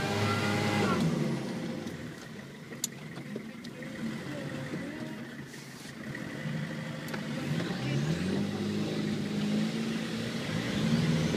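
Off-road 4x4 engine revving in rising surges, heard from inside a vehicle cab: a climb in pitch about a second in, a quieter stretch, then rising revs again around eight and eleven seconds in.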